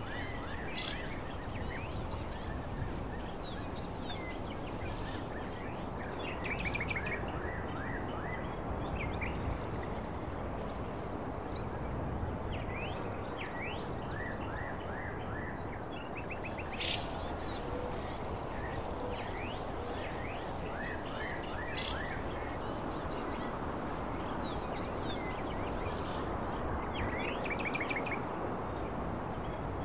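Outdoor ambience: a steady rushing noise bed with birds chirping in short repeated calls and a continuous high-pitched insect trill.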